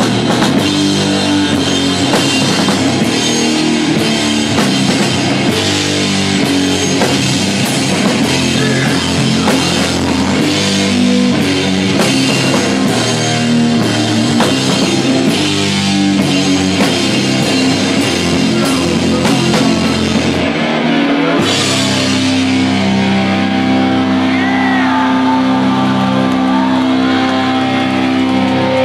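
Sludge metal band playing loud live, with distorted guitar, bass and pounding drums and cymbals heard from beside the drum kit. About two-thirds of the way through the drums stop after a final crash, leaving distorted guitar chords ringing out with a rising squeal of feedback.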